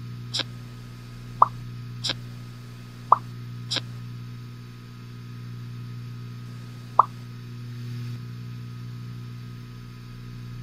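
A series of six short, sharp pop sound effects, alternating lower and higher in pitch and spaced unevenly, with the last a few seconds after the others. A steady low hum runs underneath.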